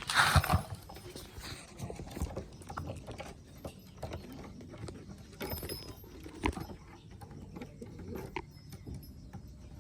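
Domestic pigeons pecking at scattered corn kernels: many irregular light clicks, after a brief loud rush at the start.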